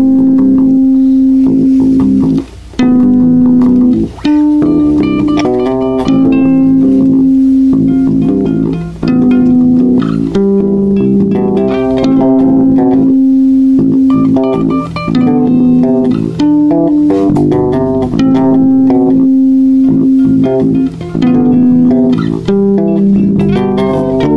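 Instrumental passage of a funk-folk-rock song: guitar and bass guitar playing, the melody moving in long held notes, with no vocals.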